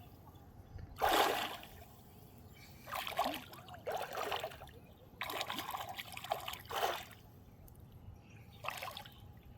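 Water splashing and trickling in short separate bursts, about five of them, with a longer spell of splashing in the middle.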